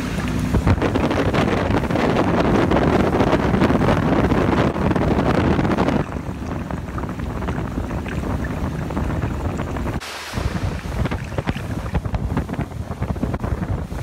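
Wind buffeting the microphone over water rushing past a motorboat running at speed. The sound changes abruptly about six and ten seconds in.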